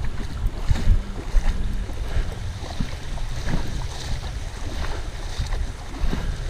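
Wind buffeting the microphone, an uneven low rumble with irregular gusty thumps.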